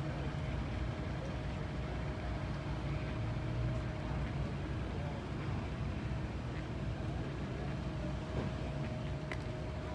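Big-rig diesel truck engines idling: a steady low rumble with a faint, steady whine above it.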